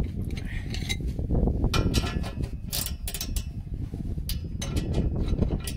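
Socket ratchet clicking and clinking on the nut of a rusty exhaust pipe clamp as it is turned loose, in irregular bursts over a steady low rumble.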